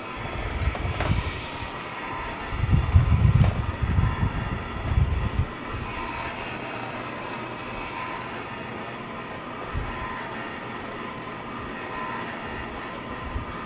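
The Dyvee KAKA G400 coffee roaster's small electric motor running steadily, turning the empty glass drum: the motor works. Low rumbling bumps from handling the roaster in the first five seconds or so.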